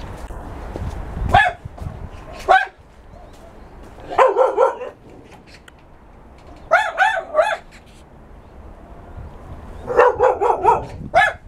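Caged dogs barking: single barks and quick runs of three to six barks, with pauses of a couple of seconds between. A low rumble sounds in the first second or so.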